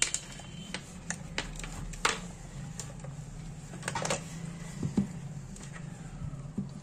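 Screwdriver tip working at the plastic locking clips of a CRT TV's deflection yoke: a string of small, irregular clicks and scrapes over a steady low hum.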